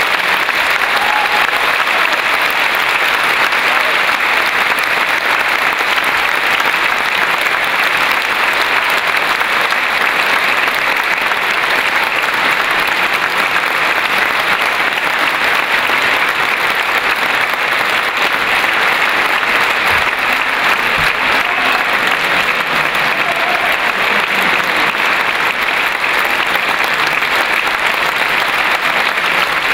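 Long, steady applause from a concert-hall audience at the end of a soprano's opera aria: dense, even clapping.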